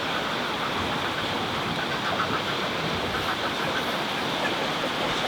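Steady rush of sea surf, even and unbroken throughout.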